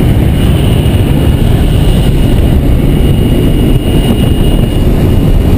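Propeller aircraft engine heard from inside the cabin of a skydiving jump plane in flight: a loud, steady, deep rumble.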